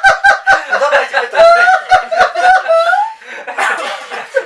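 A few people laughing and chattering, loudest in the first three seconds, then quieter.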